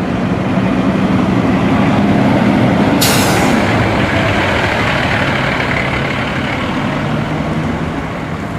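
Heavy truck engine running steadily, with a sudden sharp hiss of air brakes about three seconds in that fades away.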